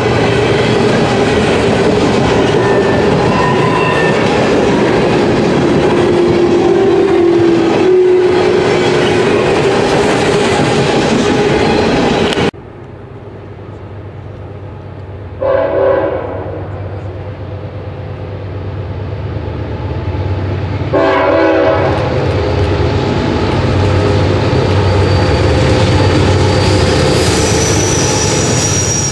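Empty ethanol tank cars rolling past with a loud rattling clatter and a steady squealing tone from the wheels. The sound cuts off suddenly about 12 seconds in. Then a diesel train horn sounds twice, each blast under a second, about 15 and 21 seconds in, and the low rumble of the approaching locomotives builds, led by a CSX CW40-8 with CN units behind.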